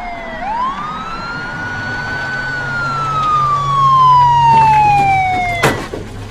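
Police car siren wailing: one quick rise in pitch, then a long slow fall. It cuts off with a sharp knock near the end.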